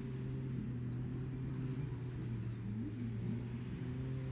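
Steady low drone of watercraft engines running offshore, with a second engine note wavering up and down in pitch as it revs.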